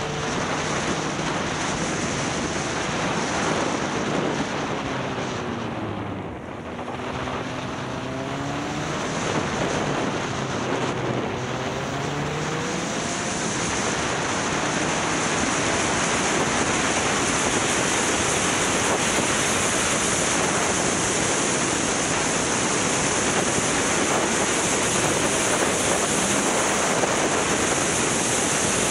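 Motorcycle on the move, with heavy wind noise on the microphone. For about the first dozen seconds the engine's pitch rises and falls through gear changes, dipping briefly about six seconds in. After that a steady wind rush covers the engine.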